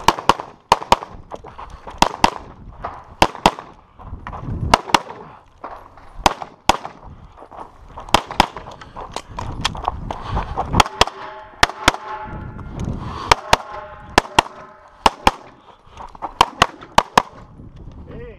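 An Open-division STI competition pistol firing fast pairs of shots, about two dozen in all, with low thuds of the shooter moving between the pairs. A brief ringing tone sounds about eleven to thirteen seconds in.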